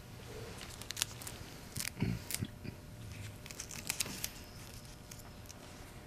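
Packaging crinkling and tearing, with scattered sharp clicks and a dull knock about two seconds in, the loudest moment.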